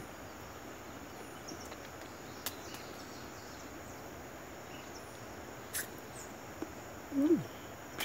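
Faint rural garden ambience: a steady low hiss with a few faint high chirps and a couple of soft clicks, and a short murmur of a voice near the end.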